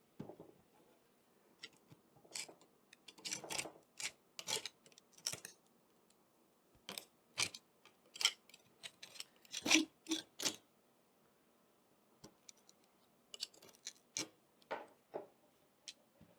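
Hand tool scraping, prying and knocking at an old wooden sash window to free a part that is catching. The sound comes as irregular short scrapes and taps in bunches, with a quiet stretch about two-thirds of the way through.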